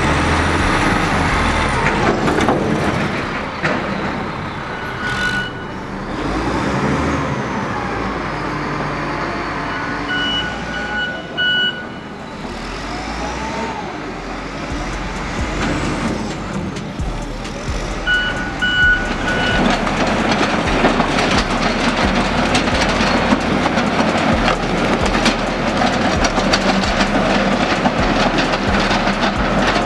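Heavy demolition machinery running, with a reversing alarm giving short runs of beeps several times. The machine noise grows louder about two-thirds of the way through.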